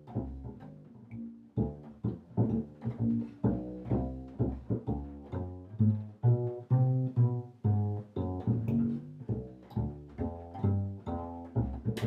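Solo bass played pizzicato: a continuous line of plucked notes, a few per second, each struck sharply and decaying quickly.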